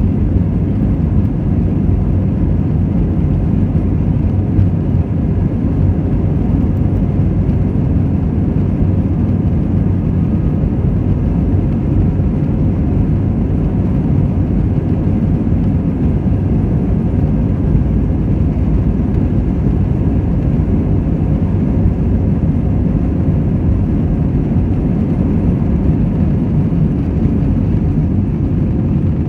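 Airbus A320-214's CFM56-5B engines at takeoff power heard from inside the cabin, a loud steady rumble with runway noise as the jet accelerates on its takeoff roll.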